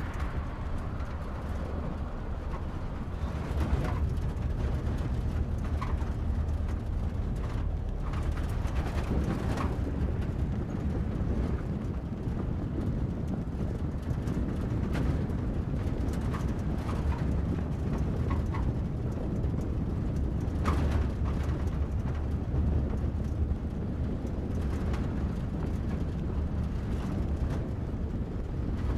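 Car driving along a road: steady low engine and tyre rumble, with scattered light knocks and rattles and a few brief high squeaks.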